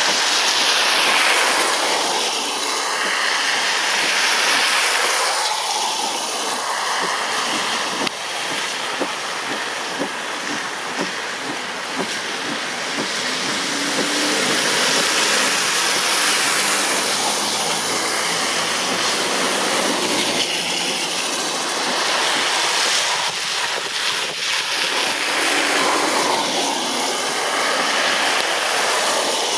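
Cars driving through standing floodwater: tyres hissing and splashing, the noise swelling each time a vehicle passes, with a faint engine hum in the middle.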